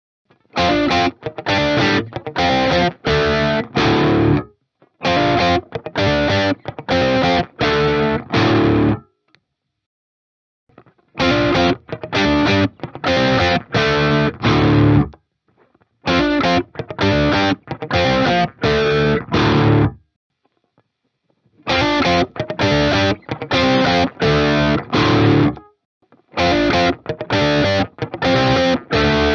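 Ibanez Axion Label RGD71ALMS seven-string electric guitar with Fluence Modern Ceramic pickups, run through an amp simulator with distortion, playing short phrases of four to six struck chords or notes, each phrase a few seconds long with brief pauses between them.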